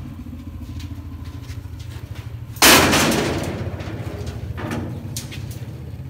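Long steel rebar bars dropped into a metal tractor trolley: a loud metallic crash about two and a half seconds in that rings away over about a second, then a smaller clatter near five seconds. A steady low engine hum runs underneath.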